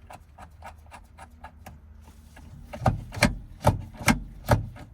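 Small metal parts and a hand tool clicking as a bolt is fitted through the shifter cable's fitting and washer. Light rapid ticks come first, then from about three seconds in louder regular knocks, about two a second.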